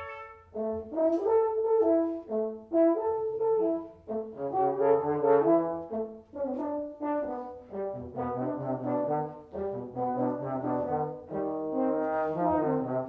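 Brass quintet playing live: a held chord breaks off at the start, then after a brief pause the ensemble plays short, bouncing detached notes, with a lower brass part growing stronger about eight seconds in.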